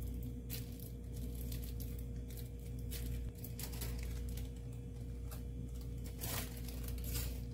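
Thin backing paper of a silver-leaf (varq) sheet rustling and crinkling as it is pressed flat by hand and then peeled away, in several short rustles, the strongest about six and seven seconds in. A steady low hum runs underneath.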